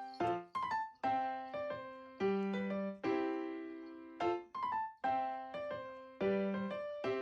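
Background music: a gentle piano melody, single notes and chords struck and left to decay in a repeating phrase.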